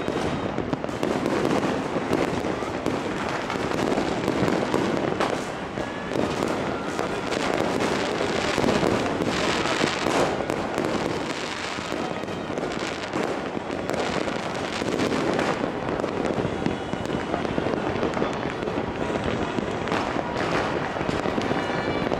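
Many fireworks and firecrackers going off at once, a dense, unbroken crackle of bangs and pops with no pauses.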